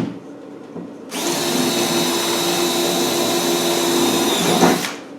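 Power drill running for nearly four seconds, drilling a rivet hole through a Land Rover seat box panel. It starts about a second in and winds down in pitch as it stops near the end.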